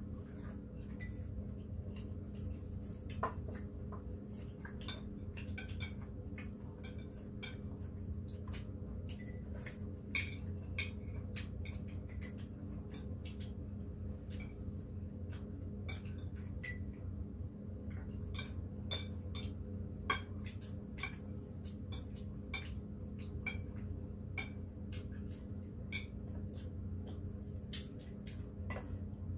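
Metal chopsticks and spoons clicking and clinking against ceramic plates and bowls during a meal, many small irregular taps, over a steady low hum.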